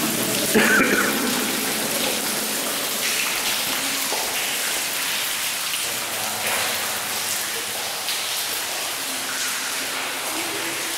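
Steady patter and trickle of water dripping inside a rock tunnel, with a short louder sound about half a second in.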